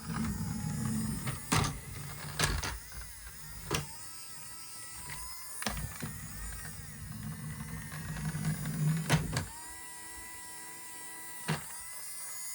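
Small electric motor of a battery-operated toy vehicle whirring in two spells, with sharp plastic clicks and knocks in between. Near the end a steady pitched tone sounds for about a second and a half.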